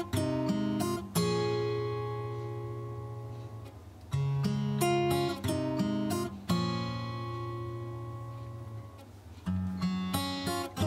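Background music: an acoustic guitar picks and strums chords and lets them ring out, a new phrase every few seconds.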